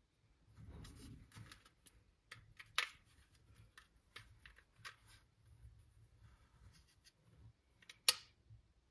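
Remax AlloyBuds M2 aluminium-alloy earbud charging case being handled and slid open: a run of small clicks and taps with soft rubbing between them, and a sharper click a few seconds in. The loudest, sharpest click comes near the end, as an earbud is taken out of the case.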